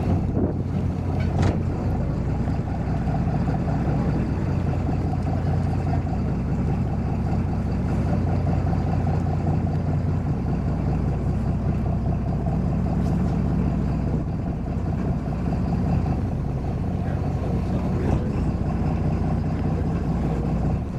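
Twin Iveco N67 six-cylinder diesel engines of an 11-metre catamaran running steadily under way, a constant low hum with no change in pitch.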